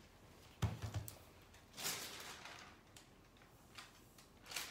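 A single dull thump about half a second in, then soft rustling of a sheet of paper being lifted and handled, with a lighter rustle near the end.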